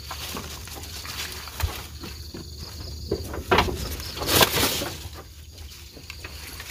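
Outdoor ambience with an on-and-off thin high insect drone, broken by a few short rustling noises; the loudest comes about four and a half seconds in.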